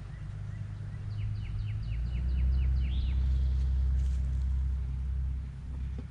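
A low rumble swelling for a few seconds, with a songbird singing a quick run of about nine short down-slurred notes near the start.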